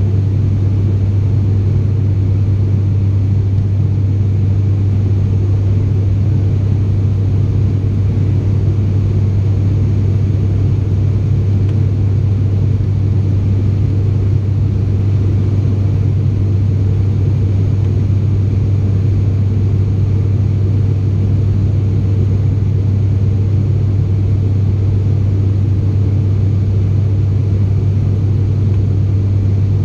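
Cabin drone of an ATR72-600's PW127 turboprop and six-blade propeller at climb power, heard from a seat beside the propeller: a loud, steady, deep hum that does not change.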